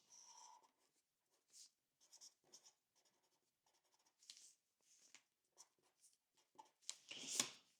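Faint, intermittent scratching of a pen or pencil writing on paper, in short separate strokes, with a brief louder rustle near the end.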